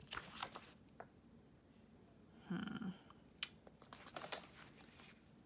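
Pages of a book being turned by hand: faint paper rustles and a few sharp page flicks, the sharpest a little past halfway. There is a brief low hum of a voice near the middle.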